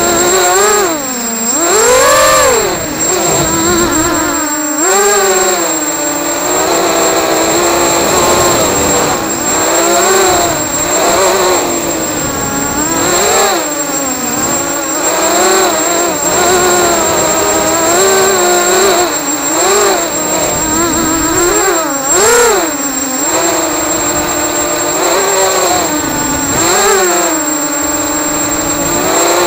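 ZMR 250 racing quadcopter's brushless motors and propellers whining, heard from its onboard camera. The pitch rises and falls every second or two as the throttle changes in flight.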